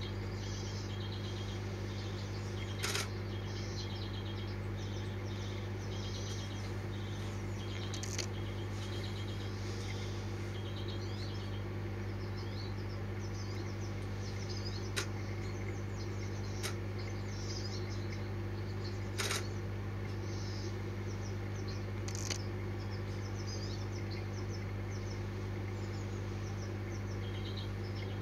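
Small birds chirping and twittering in the background over a steady low hum, with a few sharp clicks scattered through, the loudest about 3 s and 19 s in.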